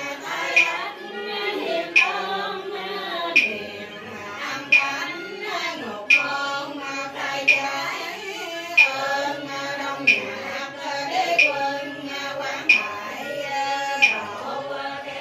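Cao Đài ritual chanting: a slow, wavering sung melody with instrumental accompaniment, marked by a sharp percussive stroke about every second and a half.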